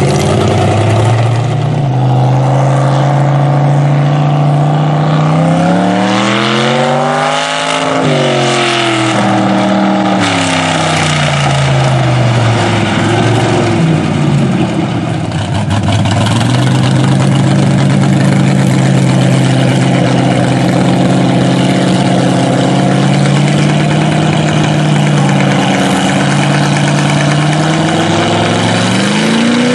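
Mega mud truck engine running loud. It revs up hard about six seconds in, peaks around eight seconds and drops back, then holds a steady drone and revs up again near the end.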